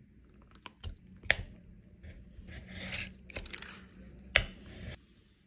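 Kitchen handling sounds: utensils scraping and rubbing in two short stretches, with a few sharp taps, the loudest two about a second in and near the end, then stopping.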